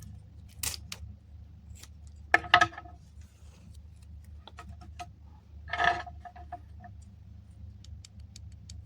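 Small tools clicking and tapping on the opened AirPod's plastic housing and parts, with a low steady hum underneath. Two brief louder pitched sounds come about two and a half seconds and six seconds in.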